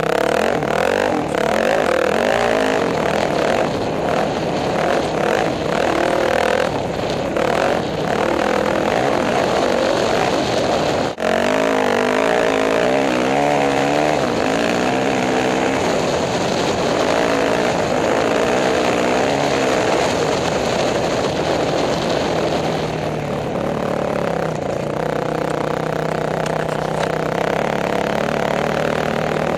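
Off-road racing motorcycle engine revving hard, its pitch rising and falling as the rider rides the throttle. Wind and dirt noise are heard on the helmet-mounted microphone. The engine sound drops off sharply for a moment about eleven seconds in.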